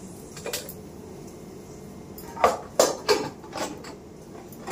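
Kitchen utensils clinking while spices are added for cooking: a single knock about half a second in, then a quick run of four or five sharp clinks in the second half.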